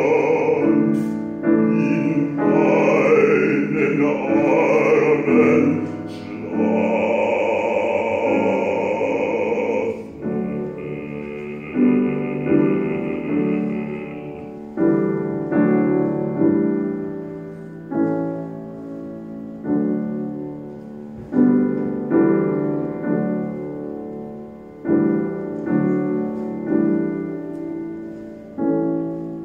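Male classical singer with an operatic vibrato, accompanied by grand piano, ending his phrase on a long held note about ten seconds in. From about fifteen seconds the piano plays on alone, its chords struck and left to die away.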